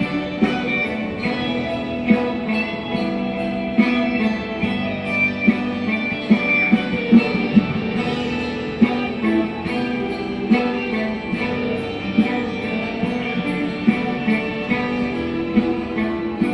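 Ukulele picked with a plectrum, playing a lead melody through a small portable amplifier over a recorded backing track with a steady ticking beat, about two ticks a second.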